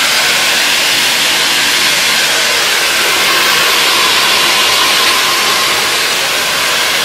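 Handheld hair dryer running, a loud steady rush of blown air and motor noise, as it blow-dries hair close to the microphone.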